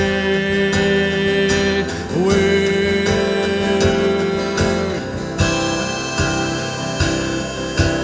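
Live acoustic song: strummed acoustic guitar under long held sung notes, the voice dropping out about five seconds in while the strumming carries on.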